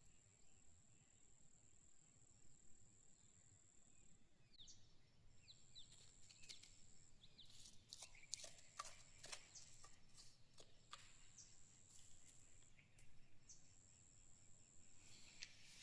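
Near silence: faint outdoor background with a high, steady whine that stops and starts every few seconds, and scattered light clicks and chirps in the second half.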